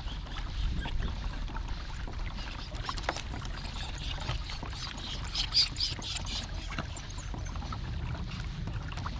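Water splashing and trickling beside a kayak, over a steady low rumble. The splashing comes in a cluster of quick splashes about halfway through.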